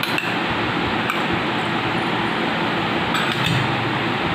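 Steel spoon and steel bowls clinking as boiled peas are tipped from a small steel bowl into a large steel mixing bowl: a few light clinks, a cluster of them near the end, over a steady background hiss.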